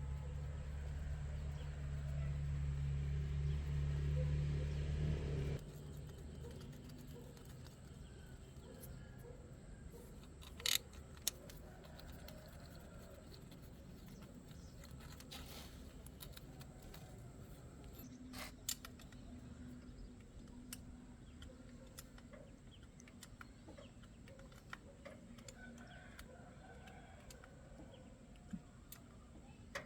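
A motor runs with a steady low hum and cuts off abruptly about five seconds in. After that, chickens cluck faintly in the background, with a few sharp clicks.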